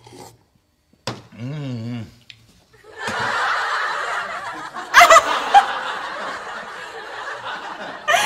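Laughter: a crowd's laughter swells from about three seconds in and carries on steadily, and a woman breaks into loud laughter over it about five seconds in.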